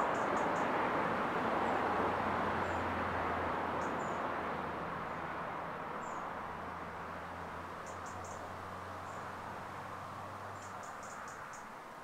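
Town street traffic: the road noise of a passing car slowly fading away, over a steady low hum of distant traffic. Small birds chirp in quick high clusters a few times, near the start, about two-thirds of the way in and near the end.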